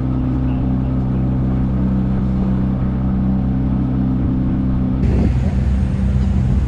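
Small motorboat's engine running steadily underway, a constant low hum. About five seconds in it changes to a rougher low rumble with wind on the microphone.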